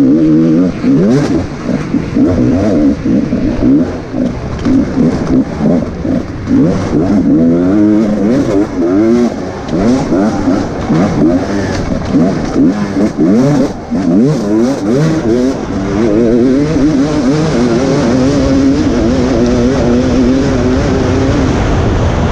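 Off-road race vehicle's engine heard on board, rising and falling in pitch over and over as it is revved hard and backed off, with scattered knocks and clatter over rough ground. In the last few seconds the engine holds a steadier pitch.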